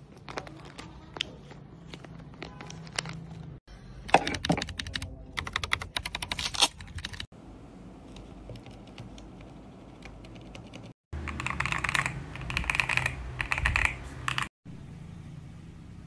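Mechanical keyboard switches clicking and clacking in short clips cut together. There are scattered clicks, then a louder run a few seconds in, and a quick burst of typing on a mechanical keyboard about three-quarters through. Each clip cuts in and out abruptly.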